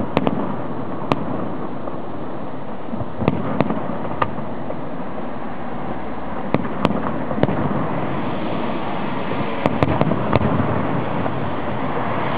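Fireworks display heard from afar: shells bursting in scattered sharp bangs, with a quick cluster of reports about ten seconds in, over a steady background hiss.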